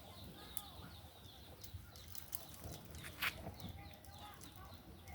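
Faint chirping of birds: many short, quick calls, with scattered sharp clicks and one louder sharp snap about three seconds in.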